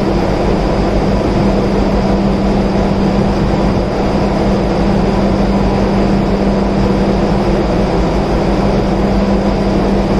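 Steady, loud machinery hum with a constant low drone and fainter higher steady tones, unchanging throughout.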